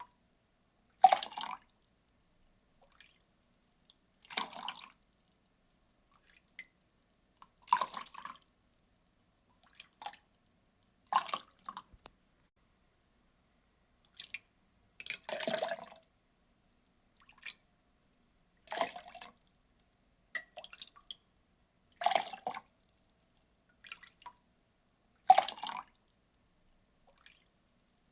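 Water poured in short splashes, one about every three to four seconds, each lasting under a second, with a few faint drips between.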